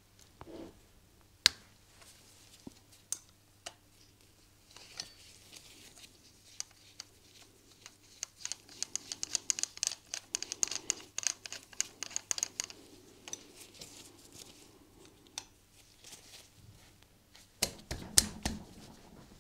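Spanner working the small bolt that holds the fuel injector to a motorcycle cylinder head: scattered sharp metal clicks and taps, with a rapid run of clicking for about four seconds in the middle as the bolt is turned.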